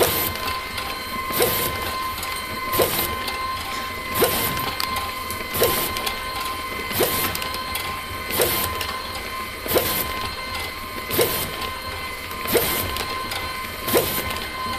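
LAB510 automatic bag-labelling machine running: a steady motor hum from the conveyor and label dispenser, with a short sharp noise about every 1.4 seconds as each coffee bag is fed through and labelled.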